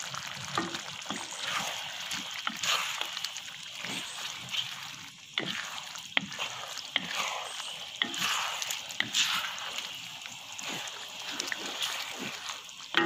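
A wooden spatula stirring fish pieces in a thin sauce in a wok: wet sloshing and scraping, with irregular light knocks of the spatula against the pan.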